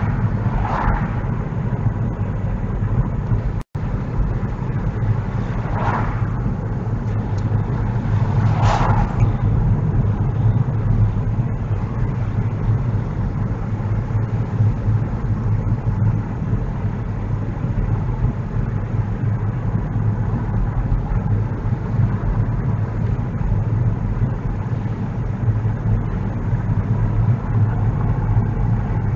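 Steady road and engine rumble of a car being driven, heard from inside the cabin, with a momentary cut-out in the sound a few seconds in.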